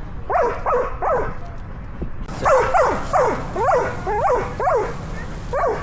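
Belgian Malinois barking in short, high yips, about ten in quick runs, with a pause of about a second after the first three.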